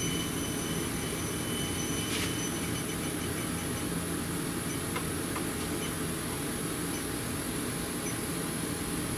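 A steady low mechanical rumble, with a faint high steady whine above it and a few light ticks.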